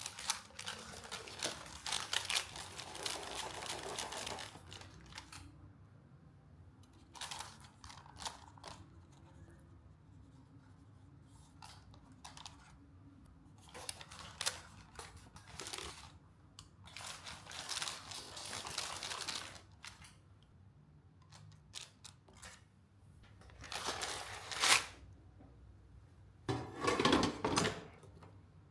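Kitchen handling sounds while baking chocolate chip cookies: bursts of rustling and scraping lasting a few seconds each, with scattered clicks and knocks and a louder scraping burst near the end.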